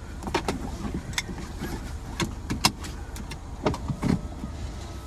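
Car engine idling, heard from inside the cabin, under scattered clicks and knocks.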